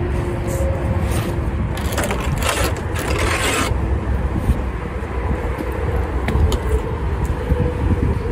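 A long panel pulled out from under the front of a car, scraping and rubbing for about two seconds starting about two seconds in, over a steady low rumble.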